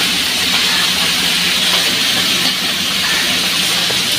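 Pabda fish frying in hot oil in a wok: a steady sizzle.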